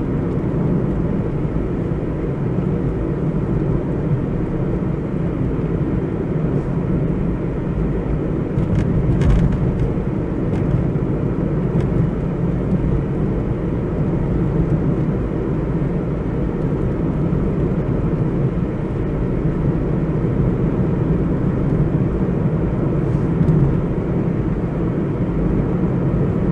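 Car cruising at steady speed on a highway, heard from inside the cabin: an even, constant rumble of engine and tyre noise.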